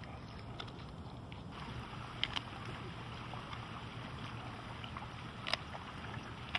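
Steady low rumbling background noise with a few short clicks, about two and a half seconds and five and a half seconds in.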